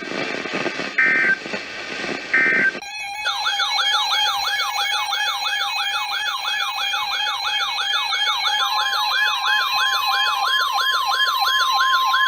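Weather-radio alert: two short warbling SAME data bursts of an Emergency Alert System header, then an electronic siren-style alert that rises over and over about three times a second. Near the end a steady warning tone sounds along with it.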